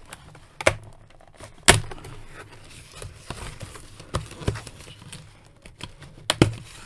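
Scissors snipping the clear plastic ties that hold plastic toy parts in a cardboard box, with handling of the box and parts. There are about six sharp, irregular clicks, the loudest about two seconds in.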